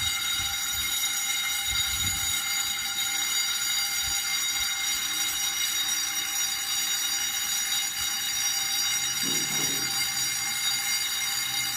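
Store fire alarm going off, a steady buzzy alarm tone that runs on without a break.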